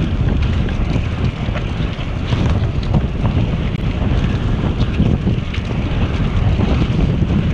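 Wind buffeting a riding cyclist's camera microphone, a loud, uneven low rumble, with tyre noise from the trail and scattered small clicks.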